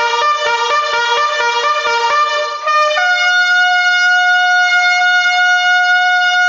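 Keyboard with a reedy, organ-like tone playing a quick run of notes, then holding one long steady note from about three seconds in.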